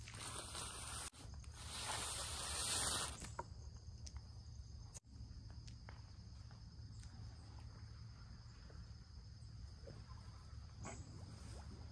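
A rushing hiss for about the first three seconds, then quiet outdoor ambience: a low steady hum with a faint high steady tone and a few small clicks.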